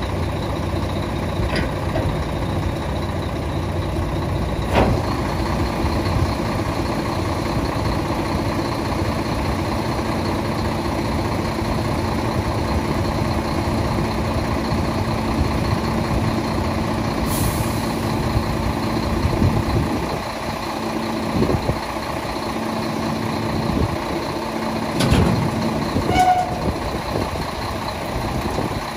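Scania tipper truck's diesel engine running while the hydraulics tip the body to one side, with a steady hum joining in about five seconds in. There is a short hiss of air about halfway through and a few metallic clanks near the end.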